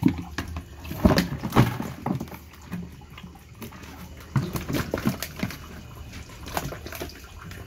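Caught featherback fish flapping and splashing in water, mixed with irregular knocks of a plastic crate being handled over a plastic basin.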